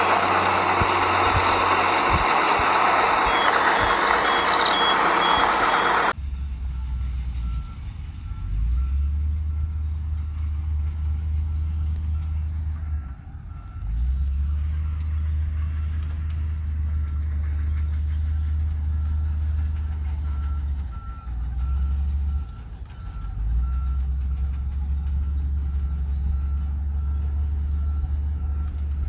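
Heavy earthmoving machinery at work. A loud, even machine noise runs for the first six seconds, then cuts abruptly to a low diesel engine rumble that drops away briefly a few times, with a reversing alarm beeping evenly over it.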